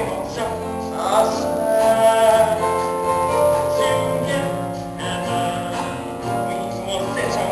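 Show-tune music from a stage musical: instrumental accompaniment with singing, held notes layered over one another.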